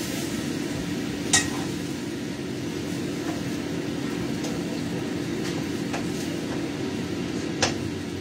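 Steady hum of a kitchen exhaust fan under cooking sounds: a sharp clink of a utensil on cookware about a second and a half in, a few faint clicks, and another clink near the end.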